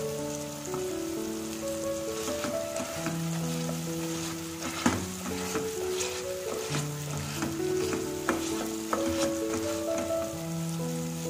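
Tadka masala sizzling in hot oil in a steel pan while a slotted metal spatula stirs it, with short scraping clicks of the spatula on the pan, the sharpest about five seconds in. Soft background music with held notes plays underneath.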